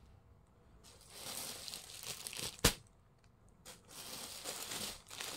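Clear plastic garment bags around new shirts crinkling as they are handled, in two spells of crackling with a single sharp click between them.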